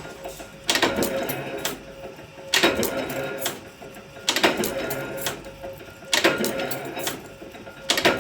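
Cutlery-making machine running a repeating cycle: a sharp clank about every two seconds, five times, each followed by a fading rattle, over a steady hum.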